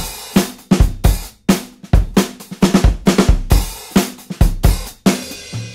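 Background music: a rock drum kit playing a steady beat of kick drum, snare and cymbals, with a low held note coming in near the end.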